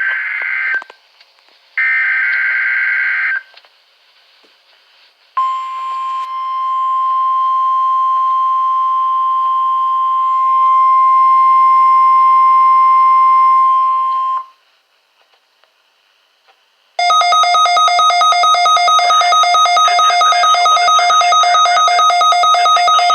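NOAA Weather Radio alert signalling for a Required Weekly Test. It opens with two short, screechy digital SAME header bursts, then holds the steady 1050 Hz weather alert tone for about nine seconds. After a short pause, rapid electronic beeping follows at about five pulses a second.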